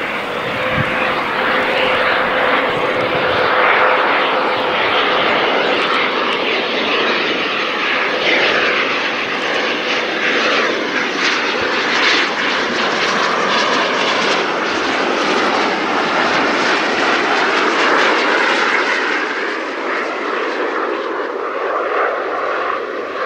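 Fixed-wing aircraft engine noise from a display flight: a loud, fairly steady rush, with a faint steady tone in the first few seconds, easing off slightly near the end.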